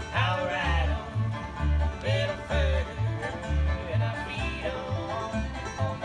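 Bluegrass trio of fiddle, banjo and upright bass playing a tune together, the bass keeping a steady beat.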